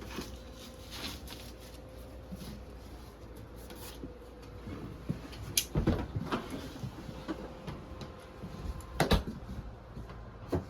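Scattered knocks and clatter of hands and tools working on an air handler and its ductwork, with the loudest bangs about six and nine seconds in, over a steady low hum.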